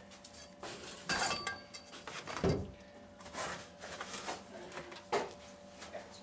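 Gloved fingers pressing and wedging mortar around the metal frame of a chimney clean-out door: scattered scrapes and rubs, a light metallic clink about a second in, and a dull thump about two and a half seconds in.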